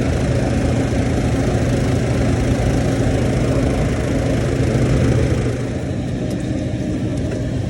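Kairak refrigerated table-top unit running noisily: a steady mechanical hum and drone with a rushing hiss, easing off slightly about five and a half seconds in.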